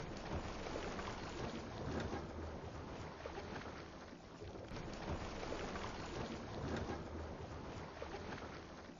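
Wind buffeting the microphone: a steady rushing noise with a low rumble, swelling and easing.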